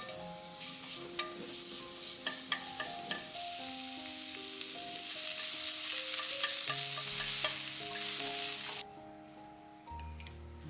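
Julienned carrots sizzling as they are stir-fried in a pan and stirred with chopsticks, with scattered sharp taps in the first few seconds. The sizzle grows louder, then cuts off suddenly about nine seconds in.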